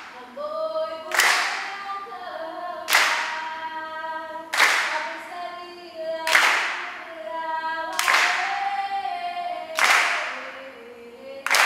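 A group of voices singing a Mek Mulung dance-drama song together, without instruments. A sharp clap lands about every 1.7 seconds, seven times in all.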